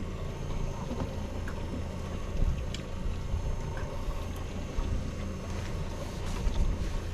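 A boat engine idling: a steady low hum, with water and wind noise and a few faint clicks.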